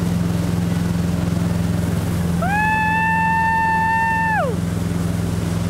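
Towing motorboat's engine running at a steady pull. About halfway through, a high held call from a person's voice rises in, holds for about two seconds, then slides down and stops.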